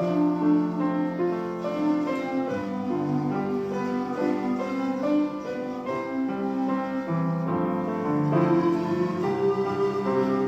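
Instrumental hymn music with piano accompaniment, a slow melody of held notes.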